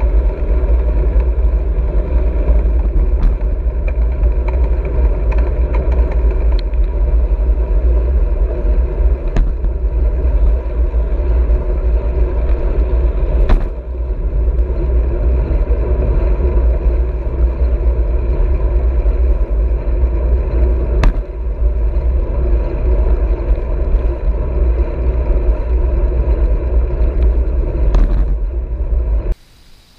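Wind buffeting the microphone of a handlebar-mounted camera, over the rumble of a road bike's tyres rolling on asphalt at speed, with a few sharp knocks along the way. It cuts off abruptly near the end.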